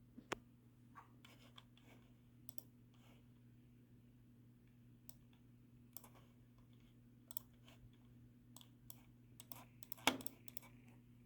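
Faint, scattered small clicks and taps, irregular, with one louder click about ten seconds in, over a steady low electrical hum.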